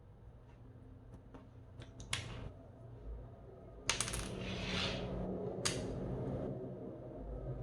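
Scattered sharp clicks and clacks from a keyboard and its packaging being handled, with a cluster of clicks and a second of rustling scrape about four seconds in.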